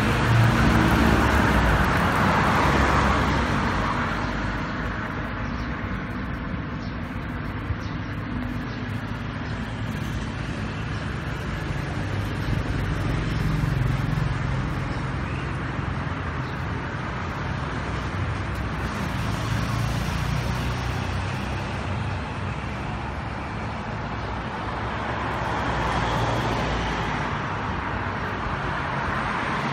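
Road traffic passing: a steady rumble of vehicles that swells and fades as they go by, loudest in the first few seconds.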